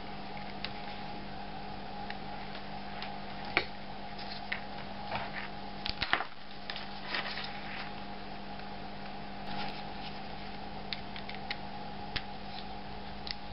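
Scattered light clicks and taps as a small metal-cased CRT viewfinder is handled, unclipped from its alligator-clip lead and a screwdriver set to its screws, over a steady electrical hum.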